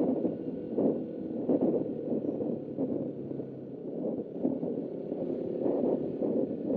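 Suzuki Raider R150 motorcycle riding at road speed: engine drone under a heavy rush of wind on the onboard microphone, its loudness surging and easing unevenly.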